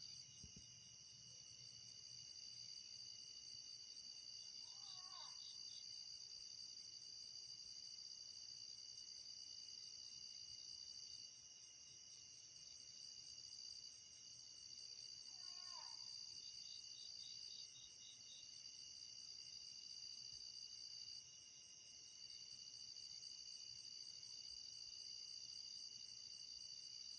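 Steady shrill chorus of night insects, with two short falling calls from an unidentified animal, one about five seconds in and one about fifteen seconds in.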